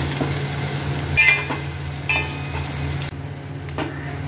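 Sliced onions, green chillies and ginger sizzling in coconut oil in a stainless steel pot while a steel ladle stirs them, clinking against the pot twice. The sizzling grows fainter for the last second.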